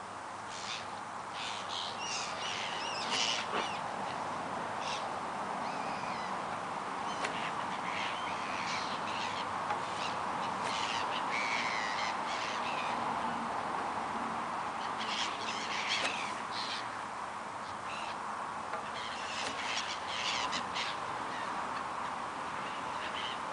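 A flock of birds over the water calling again and again, many short calls overlapping, over a steady background hiss. The birds are going mental over bait thrown into the lake.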